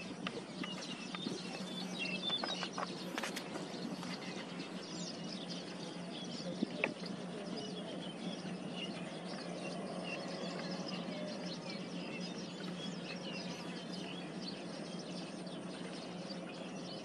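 Outdoor background of faint, scattered bird chirps over a steady hiss and low hum, with a few sharp clicks in the first seven seconds.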